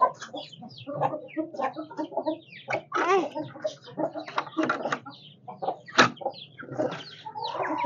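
Chickens clucking in a coop, with chicks peeping in many short, high calls. A sharp knock sounds about six seconds in.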